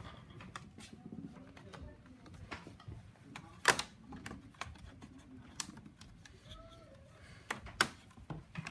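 Plastic laptop case clips snapping into place: scattered sharp clicks and taps as the case is worked around, the loudest about a third of the way in and again near the end.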